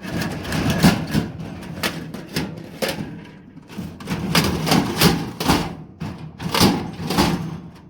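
Harbor Freight tool box's doors being opened and shut by hand: a series of irregular knocks and clatters.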